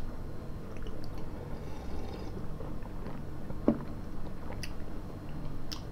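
Quiet chewing of a coconut candy, with a few soft mouth clicks over a low steady hum.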